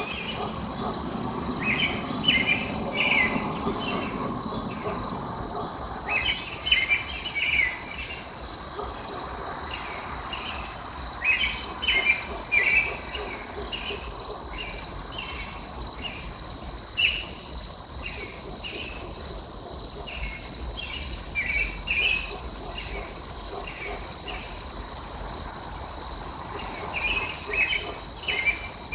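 An unidentified songbird singing short phrases of quick notes, repeated every few seconds, over a steady high-pitched chorus of insects, which is the loudest sound throughout.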